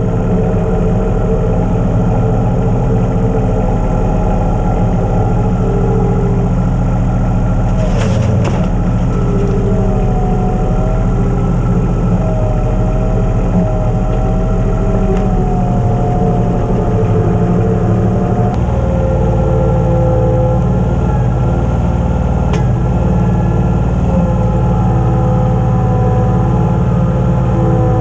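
Compact tractor engine running steadily, with a whine above it that shifts in pitch. Two brief clicks sound about 8 and 22 seconds in.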